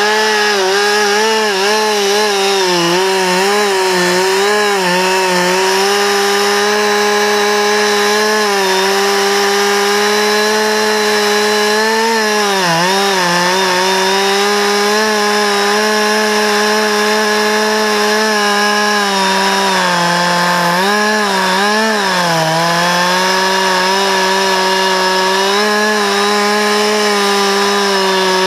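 Two-stroke Stihl chainsaw running at full throttle, cutting through a thick maple limb. The engine note dips briefly a few times as the chain loads up in the wood, then picks back up.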